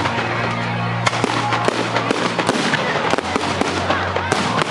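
Fireworks display: a steady run of bangs and crackling, with a sharp loud crack about a second in and another near the end.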